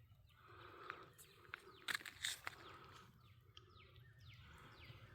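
Faint outdoor ambience with a few soft clicks, then a run of short, falling bird-like chirps near the end.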